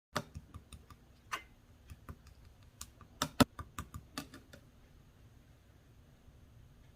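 Large jelly-like slime being pressed and stretched by hand, giving sharp little clicks and pops in quick irregular succession, dying away after about four and a half seconds.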